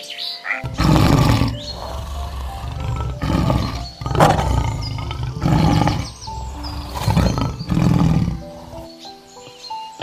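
Male lion roaring: a series of about six deep calls, the first the longest, starting about half a second in and ending shortly before the end, over background music.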